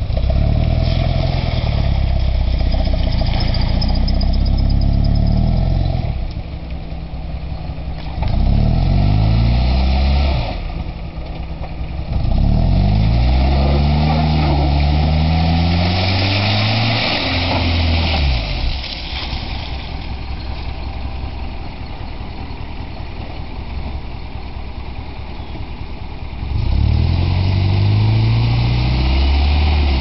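Toyota Corolla station wagon's engine revving hard in repeated bursts of a few seconds while the car labours through deep mud, the pitch climbing during the longest burst and falling back to a quieter idle between bursts.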